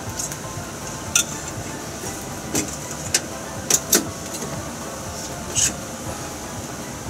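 Metal kitchenware clinking: several short, sharp clinks of a ladle, strainer and steel bowl being handled at the stove, over a steady hiss.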